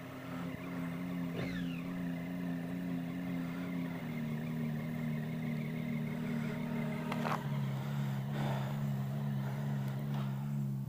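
2014 Triumph Daytona 675's three-cylinder engine idling steadily.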